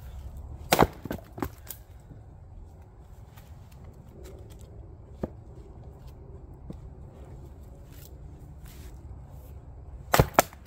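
Council Tools splitting axe striking a round of firewood and splitting it: a sharp chop about a second in followed by a few smaller cracks and clatters as the pieces fall, then a second strike near the end. Lighter knocks of wood in between.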